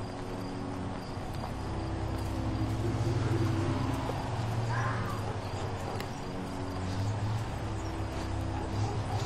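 Crickets chirping at night over the low, steady hum of an approaching motor vehicle, growing a little louder a few seconds in.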